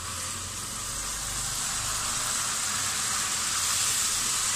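Beef boiling hard in water in an open pot: a steady bubbling hiss that grows a little louder.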